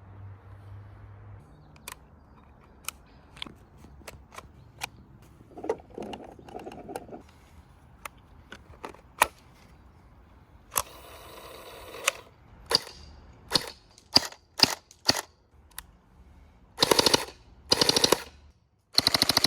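M4-style electric gel-ball blaster firing: scattered single sharp shots, then rapid motor-driven bursts, a short one about eleven seconds in and two near the end, with a longer automatic burst starting right at the end.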